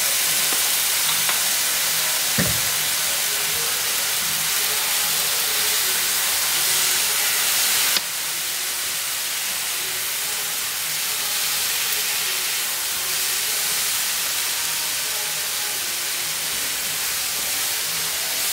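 Chicken, capsicum and carrot frying in a hot nonstick pan, a steady sizzle with steam as freshly added soy sauce cooks off while a silicone spatula turns the food. The sizzle drops a little in level about eight seconds in.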